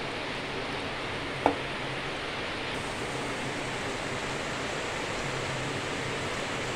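Batter-coated banana pieces deep-frying in hot oil in a cast-iron kadai, a steady sizzle. A single sharp click about a second and a half in.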